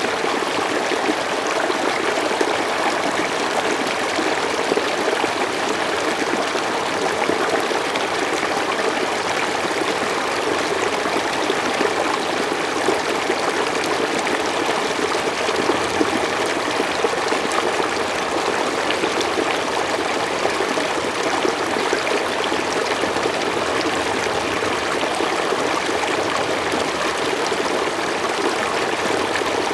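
Mountain stream flowing steadily over rocks, an even rushing and trickling of water.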